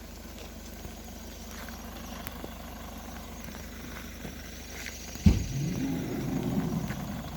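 A car's engine running steadily as the car sits stuck in mud, heard from inside the cabin. About five seconds in there is a sharp knock, then the engine sound rises and wavers for a second or two as the driver tries to drive it out.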